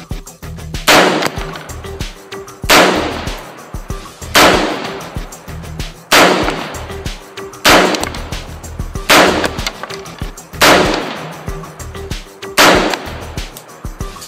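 Eight single shots from a Troy Defense 5.56 AR-style semi-automatic carbine, fired one at a time about every one and a half to two seconds. Each shot is loud and sharp with a short ringing tail.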